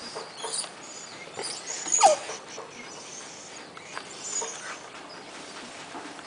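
Dog whining, with its loudest whine about two seconds in, falling in pitch.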